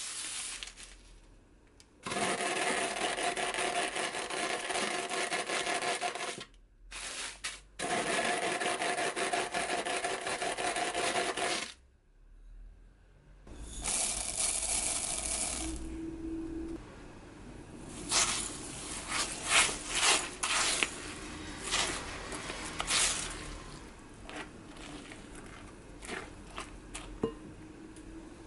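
A small motorized kitchen appliance runs in two bursts of about four seconds each, cutting off suddenly each time. Then crushed nurungji crumbs are poured onto meringue in a glass bowl, and a spatula folds them in with light clicks and scrapes against the glass.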